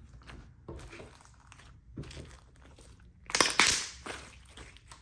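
Slime being handled and mixed by hand: a run of small sticky clicks and pops, with a louder noisy burst lasting about half a second a little over three seconds in.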